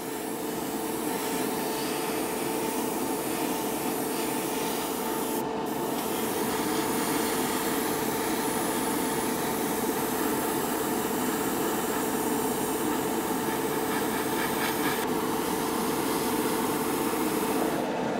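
Airbrush spraying paint with a steady hiss over the even hum of a motor running, which breaks off briefly about five seconds in.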